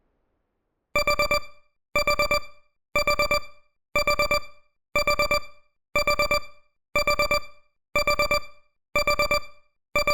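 Digital timer alarm beeping in quick groups of four short beeps, one group every second: the countdown has reached zero. It starts about a second in.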